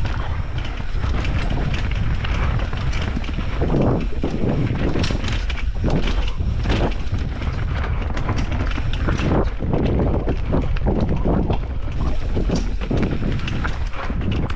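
Wind buffeting the microphone over the rumble of a Pole Stamina 180 mountain bike riding down a dirt trail, with many irregular knocks and rattles from the bike.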